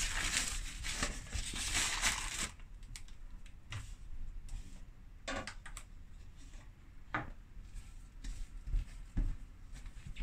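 Rustling for the first couple of seconds, then quiet handling with a few short knocks as a stainless steel mixing bowl is set on a digital kitchen scale to weigh bread dough.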